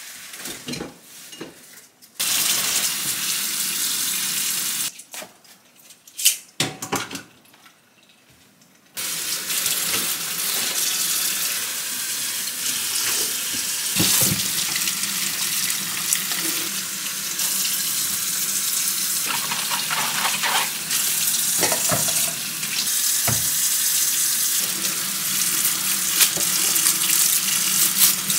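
Kitchen tap running into a sink as produce is rinsed by hand, with water splashing over the fruit and vegetables and a few knocks as they are handled. The water runs briefly, stops for a few seconds, then runs steadily from about nine seconds in.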